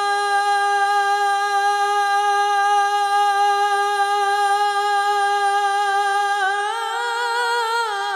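Male lead vocalist singing without accompaniment, holding one long steady note into the microphone; about six and a half seconds in the note breaks into a wavering, ornamented melisma.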